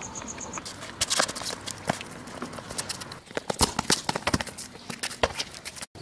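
A basketball bouncing on an outdoor concrete court among boys' running footsteps: a string of irregular sharp thuds and slaps.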